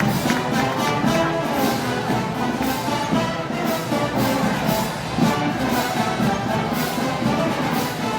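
Brass band playing Moros y Cristianos festival music, with sustained brass notes over a steady beat.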